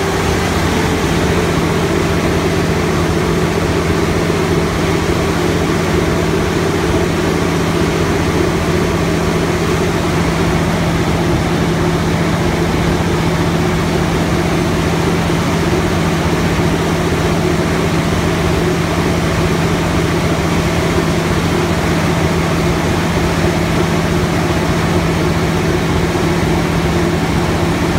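Cummins NT855 inline-six diesel engine of a 275 kW generator set running steadily at governed speed, its alternator putting out 60 Hz at about 208 volts. It is a loud, even drone with no change in pitch, heard from inside the sound enclosure.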